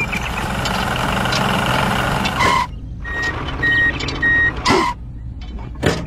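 A truck's reversing alarm beeps three times, about half a second apart, after a steady engine-like noise that cuts off about two and a half seconds in.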